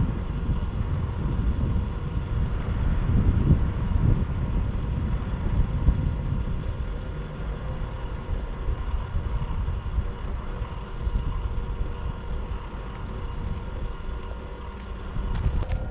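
Traxxas TRX-4 RC crawler driving: a steady low rumble with a faint whine from its electric motor and gears.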